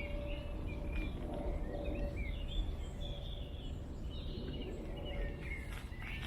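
Many songbirds singing and chirping at once, a busy overlapping chorus of short high phrases, over a steady low rumble.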